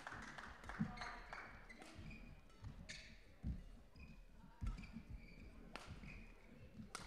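Badminton hall sounds: short squeaks of court shoes on the floor, dull footfalls, and a few sharp racket strikes on a shuttlecock, the loudest near the end.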